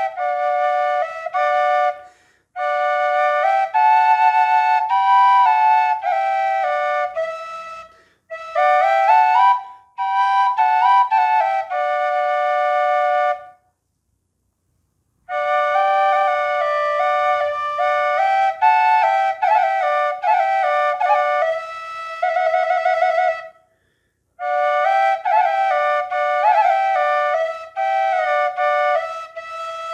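Dvojnice, a Croatian wooden double duct flute in D, played with both pipes sounding at once: two lines of melody moving together in short phrases, broken by quick breaths and by a pause of nearly two seconds about halfway through. Near the end the notes are held, with a quiver in the pitch.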